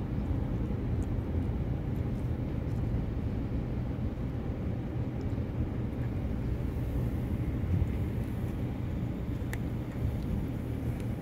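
A steady low rumble, with a few faint clicks from a kitten chewing chicken and rice.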